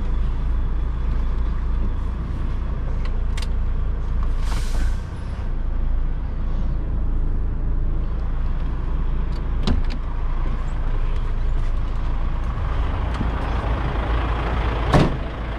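DAF truck's diesel engine running at low revs. About four and a half seconds in there is a short burst of air hissing from the air brakes, and there are a few clicks; a loud knock comes near the end.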